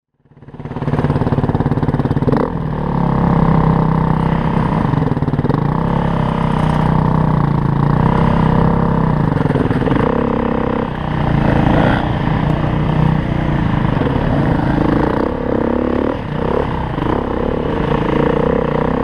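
2015 Beta RR350 enduro motorcycle's single-cylinder four-stroke engine running under way, its pitch rising and falling with the throttle; it fades in over the first second.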